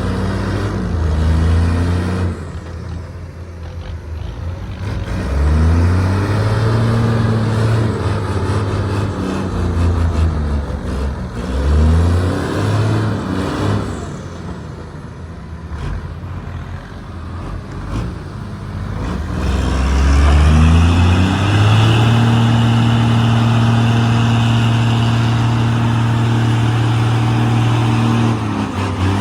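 Heavy diesel engine of earthmoving machinery revving up and dropping back several times, then held at high revs steadily for the last third.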